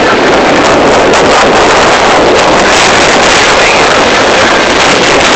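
Loud, steady rushing noise of wind blowing across the phone's microphone.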